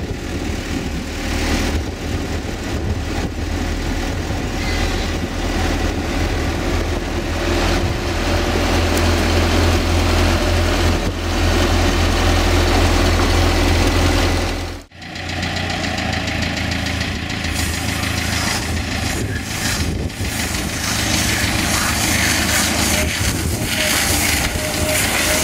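Diesel farm machinery engines running steadily: a telehandler working round grass bales, then, after an abrupt change about halfway through, a tractor pulling a round-bale wrapper.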